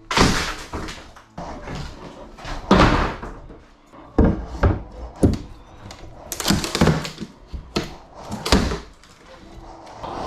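Irregular thuds, bangs and short crashes of house-demolition debris being knocked loose and dropped, some with a brief rattle of falling pieces after the hit. The heaviest crash comes about three seconds in.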